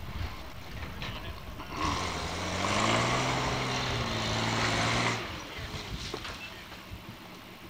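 Lifted four-wheel-drive pickup's engine revving hard for about three seconds, starting about two seconds in, as it tries to drive out of deep mud. The pitch climbs and then holds with a thick rushing noise over it, then drops back to a low rumble.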